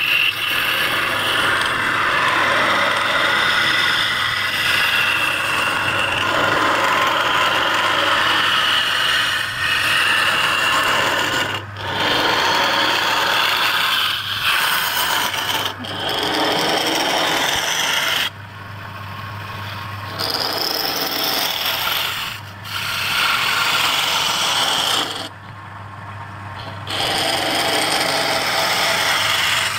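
A hand-held turning tool cutting the inside of a wooden bowl spinning on a lathe: a loud, rough scraping of shavings being cut. It breaks off briefly several times, leaving the low hum of the running lathe.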